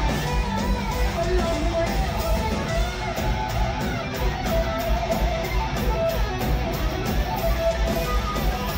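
Power metal band playing live through a PA: distorted electric guitars carrying a melodic line over a fast, steady kick-drum beat, heard from within the audience.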